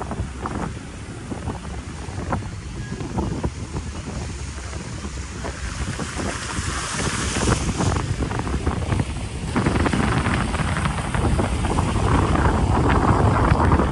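Wind buffeting the microphone over a steady rush of noise, with frequent low rumbles; it grows louder and brighter about two-thirds of the way through.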